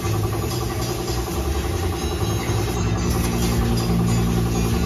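Air compressor running steadily, feeding a paint spray gun whose air hisses as it sprays; a second, higher hum joins about halfway through.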